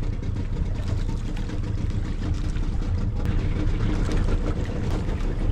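Outrigger fishing boat's motor running steadily at low pitch, with wind on the microphone and water washing along the hull and outrigger floats.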